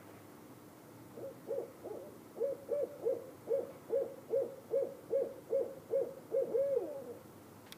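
An owl hooting: a run of about a dozen short, evenly spaced hoots, roughly two or three a second, for about six seconds.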